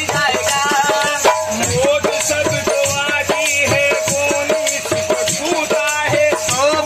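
Two dholaks (barrel hand drums) played by hand in a quick folk rhythm, with a man singing over them.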